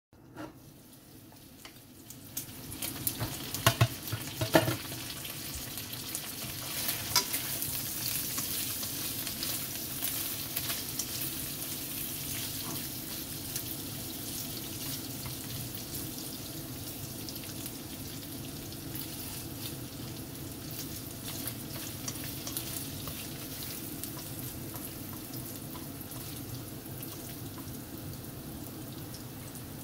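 Pork belly cubes sizzling as they fry in a nonstick wok and are turned with chopsticks. The sizzling starts about two seconds in and stays steady, with a few sharp clicks soon after.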